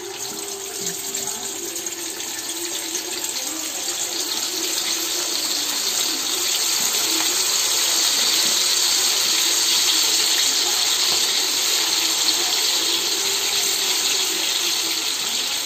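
Marinated chicken pieces deep-frying in hot coconut oil in a kadai: a dense sizzle that builds over the first several seconds as pieces are dropped in, then holds steady.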